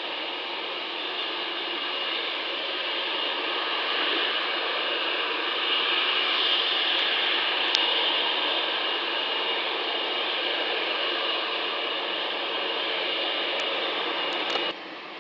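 Boeing 747's four jet engines at climb power, heard as a steady roar with a faint whine in it, swelling toward the middle and slowly fading as the aircraft climbs away. Near the end it cuts off abruptly to a quieter hiss.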